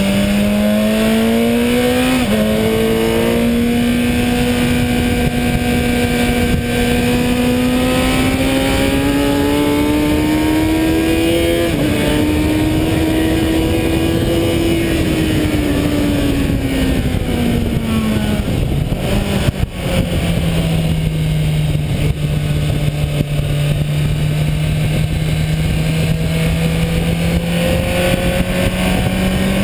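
Kawasaki Ninja 1000's inline-four engine under load on a track, with wind rush over the bike. The engine note climbs steadily for about twelve seconds, dips briefly, then falls away as the bike slows, with a sharp click shortly before twenty seconds, holds at a lower pitch, and climbs again near the end.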